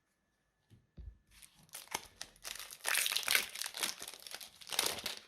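Foil wrapper of a Pokémon booster pack crinkling and tearing as it is ripped open, after a soft knock about a second in.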